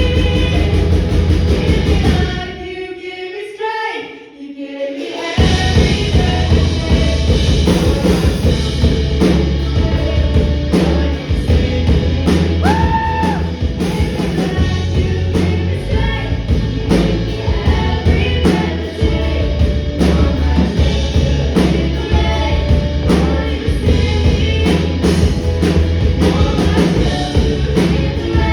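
A band playing a Christian rock song with singing, a steady drum beat and bass. About two seconds in, the instruments drop out for about three seconds, leaving the voice alone, then the full band comes back in.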